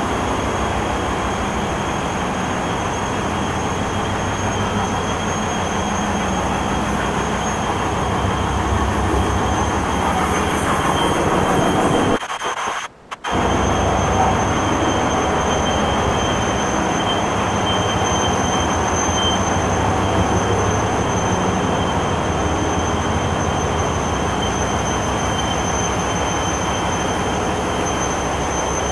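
Large diesel generator sets running steadily: a loud, dense drone of engine firing with a steady high whine above it. The sound cuts out for about a second roughly halfway through.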